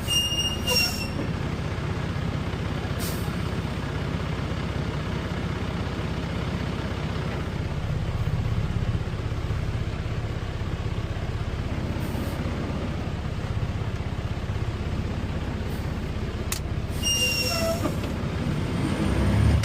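Concrete mixer truck's diesel engine running steadily, with short high squeals and a hiss about half a second in and again near the end. The engine swells louder just before the end.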